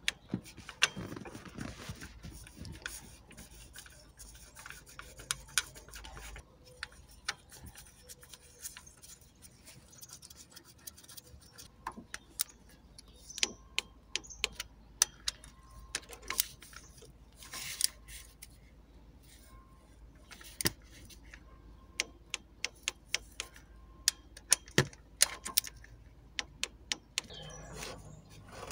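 Irregular metallic clicks and light taps of hand tools and engine parts being handled while the timing-chain tensioner is fitted on the engine, some coming in quick clusters.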